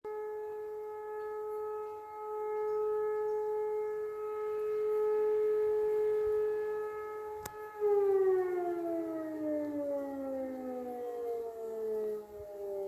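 E57 electromechanical civil-defence siren sounding a test alarm: a steady, slowly swelling and fading tone, then winding down with a falling pitch from about eight seconds in. A sharp click comes just before the wind-down.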